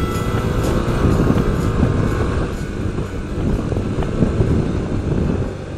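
Motorcycle at road speed heard from the rider's seat: a steady low rumble of engine, wind and road noise, easing slightly near the end.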